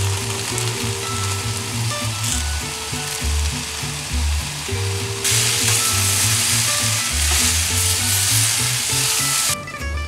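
Tofu, carrots and shredded cabbage sizzling in a frying pan as they are stir-fried and stirred with a spatula. The sizzle gets louder about five seconds in and drops away shortly before the end, over light background music with a steady bass beat.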